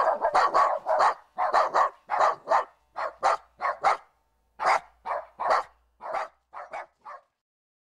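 West Highland White Terrier barking: a rapid run of short barks, about two to three a second, that thins out and stops near the end.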